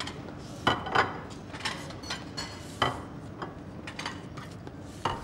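Crockery and cutlery clinking in scattered light knocks and taps, about a dozen spread irregularly over a few seconds, as in a restaurant being set up.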